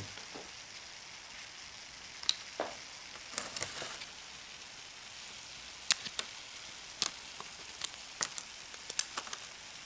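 Dry ice fizzing in a bath of 95% ethanol, a steady low hiss of bubbling, with scattered sharp crackles and clicks as a flash-frozen leaf is lifted out and bent and broken apart.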